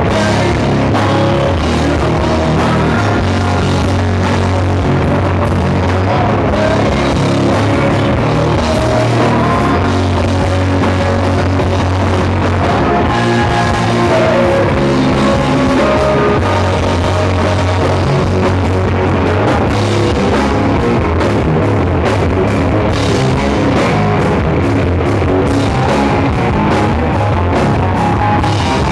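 Live rock band playing an instrumental passage with guitars, bass and drum kit, and no singing.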